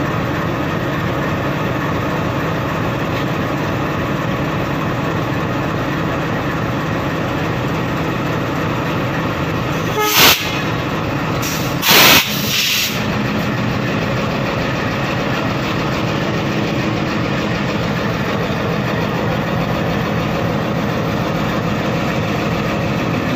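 Broad-gauge diesel locomotive idling steadily beside the coach being coupled. Twice, about ten and twelve seconds in, a short, loud hiss of compressed air cuts in, the second lasting under a second, as the air brake hoses are worked.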